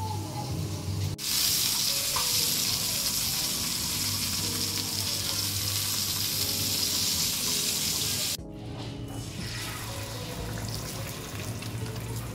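Hungarian sausage sizzling in hot oil on a flat griddle pan: a loud, steady hiss that starts suddenly about a second in. Near the end it drops to a softer sizzle as beaten egg is poured onto the griddle. Background music plays underneath.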